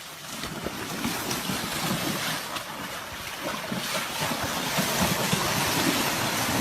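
Wind buffeting the microphone over the rush of water, a noisy hiss with no clear tones that grows louder from about a second in and is loudest near the end.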